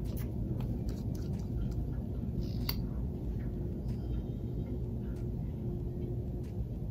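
Steady low rumble of background room noise with a faint constant hum, and a few faint clicks, the clearest about two and a half seconds in.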